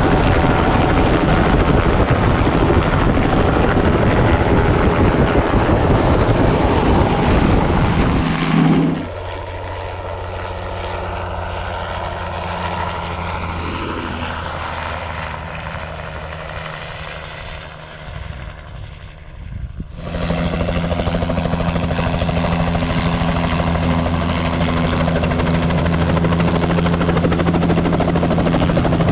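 Bell 206 JetRanger helicopter's turbine engine and rotor running loud and close. About nine seconds in it cuts abruptly to a much quieter sound of the helicopter farther off, which fades further before it turns loud again about twenty seconds in, with a steady low hum as the helicopter comes in low nearby.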